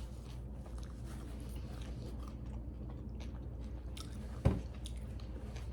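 Close-miked wet chewing and small mouth clicks of someone eating a juicy grinder sandwich, over a low steady hum. There is a single sharp thump about four and a half seconds in.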